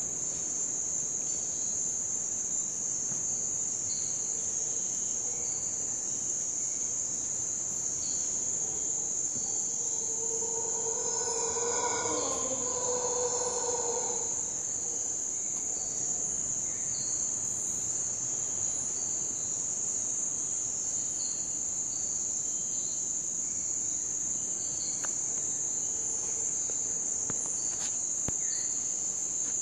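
Steady high-pitched drone of night insects, with short chirps repeating over it. A howler monkey call, lower and pitched, swells and fades between about ten and fourteen seconds in.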